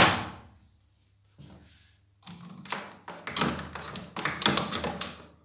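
Plastic and rubber taps, knocks and rubbing as a coiled high-pressure hose is wound onto a pressure washer's plastic hose holder. There is a single light tap, then a dense run of knocks from about two seconds in until just before the end.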